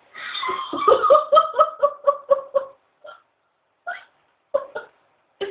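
A woman laughing: a run of rhythmic 'ha-ha' pulses, about five a second, for roughly two and a half seconds, then a few short, broken laugh sounds with gaps between them.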